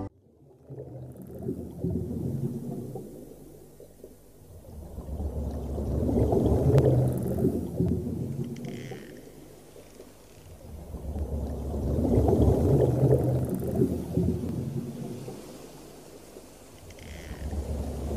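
Underwater ambient soundtrack of the sensory system's ocean video: a deep, muffled rumble that slowly swells and fades about every six seconds, with a faint high falling tone twice.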